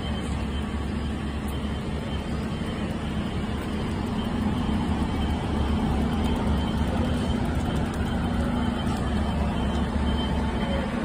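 Diesel engines of parked fire trucks running steadily, a continuous low hum, with a faint high steady tone joining about four seconds in.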